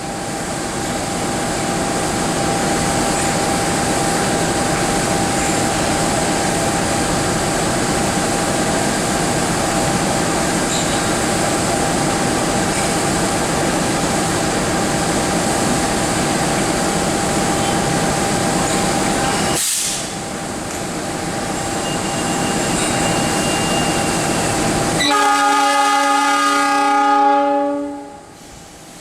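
A passenger train running on the rails, with a loud steady rumble and a thin steady squeal over it. About 25 s in, a diesel locomotive horn sounds one chord of several tones for about three seconds, then stops.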